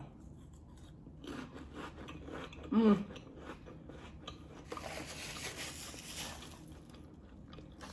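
Close-up crunching and chewing of a cracker topped with smoked oyster and cheese, with a short hummed voice sound about three seconds in.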